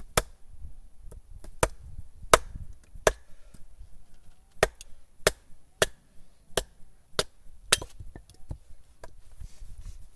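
A wooden baton striking the back of a small axe head, driving it down through a hazel stick stood on a chopping block to split it. About ten sharp wooden knocks, roughly one every half second or so, with a short pause partway through and a few lighter clicks near the end as the stick comes apart.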